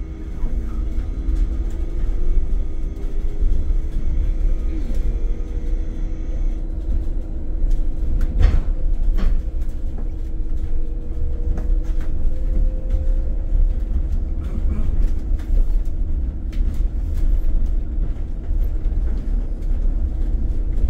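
Cabin noise inside a Solaris Urbino 9 IV LE Electric battery bus on the move: a steady low rumble with a faint high whine that stops about six seconds in. One sharp knock rings out a little before halfway.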